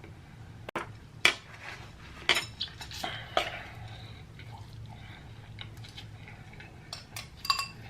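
Eating utensils clinking and tapping against a dish, a dozen or so separate clicks in two clusters, the last few ringing briefly.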